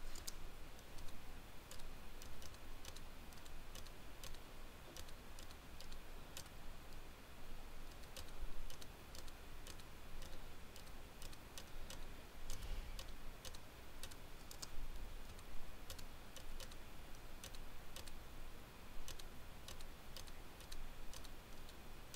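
Quiet, irregular clicking of computer keyboard keys and mouse buttons, sometimes several a second, as folders are opened and files selected.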